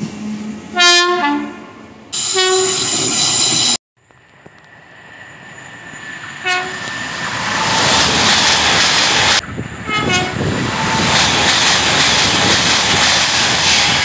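Train horns and passing trains in three short clips. First, a Southern Class 313 electric unit sounds a short multi-tone horn blast about a second in, followed by a louder, longer horn note. Then an LNER Azuma high-speed train sounds a brief horn blast as its running noise swells, and it passes at speed. After a cut, another short horn blast comes as a train rushes past.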